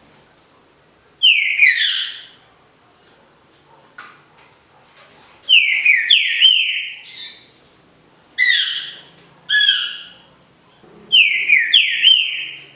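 Green-winged saltator (trinca-ferro) singing the smooth 'canto liso' song of the Paraná type: loud whistled phrases of downward-sliding notes. It sings four phrases, roughly one every three seconds, with short pauses between.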